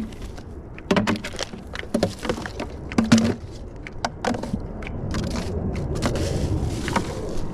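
Sharp knocks, clicks and rustling from litter being picked up and handled, loudest about a second in and again around three seconds. A steady rushing noise swells in the second half.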